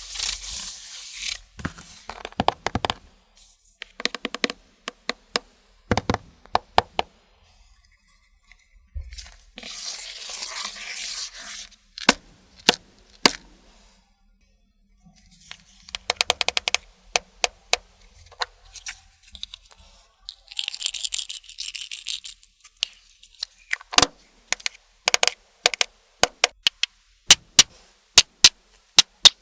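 Slime being mixed and squished by hand: bursts of sticky crackling alternate with series of sharp pops and clicks, which come faster near the end.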